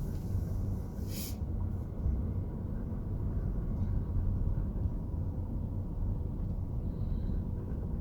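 Steady low rumble of a car's engine and tyres heard from inside the cabin while driving, with a brief hiss about a second in.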